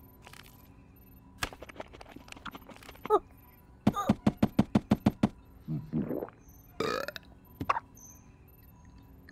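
Cartoon eating and vocal sound effects for an alien monkey gobbling a pastry: quick crunching clicks, then a rapid rattling run of about ten throaty pulses like a long burp, followed by a few short grunts.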